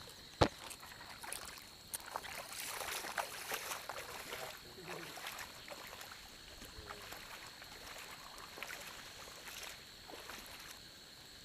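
Faint water sloshing and splashing with scattered small clicks, and one sharp click about half a second in.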